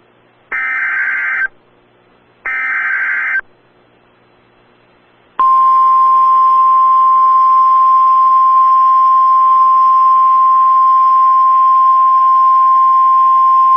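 Emergency Alert System signal. Two short, harsh, buzzy bursts of SAME header data come about a second apart. Then, after a pause of about two seconds, a loud, steady single-pitch attention tone starts about five seconds in and holds: the alarm that announces a National Weather Service severe thunderstorm warning.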